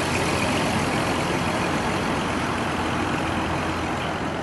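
Pickup truck towing a small trailer driving along the street, a steady engine and road noise.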